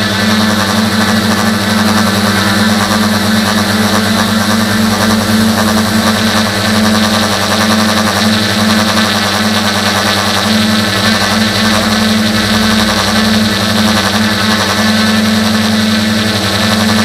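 Tricopter's electric motors and propellers in flight, heard close up from the onboard camera: a loud, steady, even-pitched hum.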